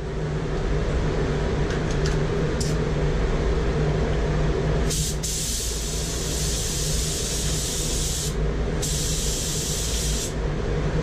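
Steady hum of a paint booth's air system, over which a paint spray gun hisses in two long blasts: one about five seconds in lasting some three seconds, then a second, shorter one after a brief pause.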